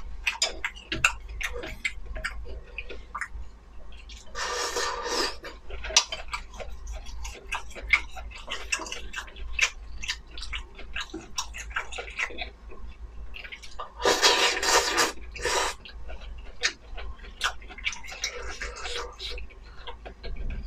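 Close-miked eating of kimchi-flavour instant noodles: steady wet chewing with many small mouth clicks, and noodles slurped three times, about four seconds in, loudest around fourteen seconds, and more faintly near the end.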